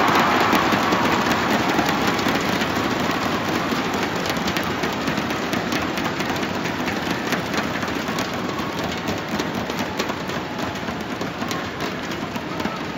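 Large arena crowd cheering and clapping in celebration of a match win, a dense roar with crackling claps that fades gradually.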